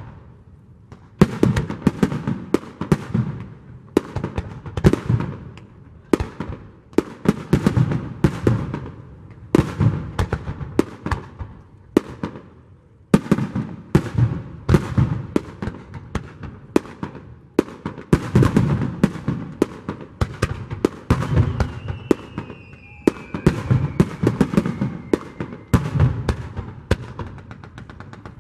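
Fireworks display: a rapid barrage of aerial shell bursts, sharp bangs several times a second, with short lulls near the start and about halfway. A faint falling whistle sounds about three-quarters of the way through.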